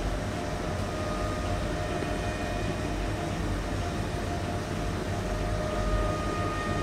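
Cordless drill motor running steadily with a faint whine, turning a cylinder that winds up a thread of pulled isomalt sugar.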